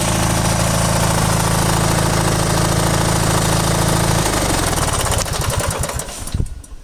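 Stripped-down riding mower engine running steadily, then shut off about four seconds in: it chugs down with slowing beats and stops near the end.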